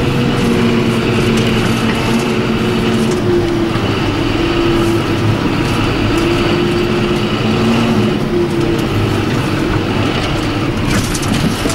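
John Deere 7530 tractor's six-cylinder diesel engine running steadily while hauling a trailer, its pitch dipping and rising slightly a few times, over road and drive noise.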